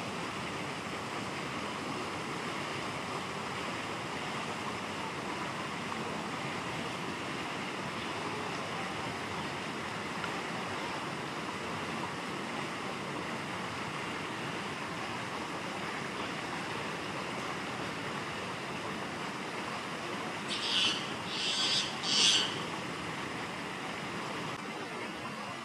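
Steady rushing background noise, with three short, loud, shrill calls in quick succession about twenty-one seconds in.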